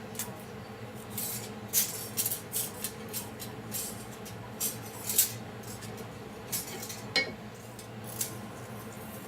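Cast metal parts of a tenon jig clinking and clattering as they are handled and set down while the jig is taken apart, in irregular light knocks over a steady low hum.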